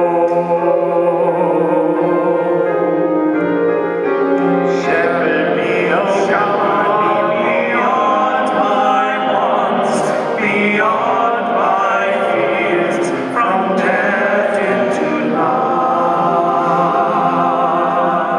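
Sacred music at a funeral Mass: a singer with a strong vibrato over sustained accompanying chords, moving into a new phrase about five seconds in.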